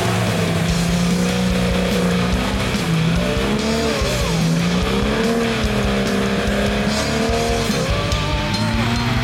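Off-road vehicle engine revving up and down, its pitch rising and falling every second or two as the throttle is worked.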